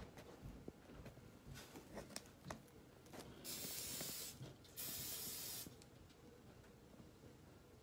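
Two bursts of hiss, about a second each and half a second apart, a little past the middle. Faint scattered clicks come before them.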